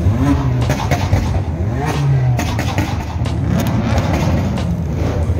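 A car engine revving and accelerating, its pitch rising and falling several times.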